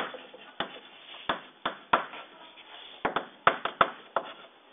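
Chalk writing on a blackboard: about a dozen irregular sharp taps as the chalk strikes the board, with faint scraping between them.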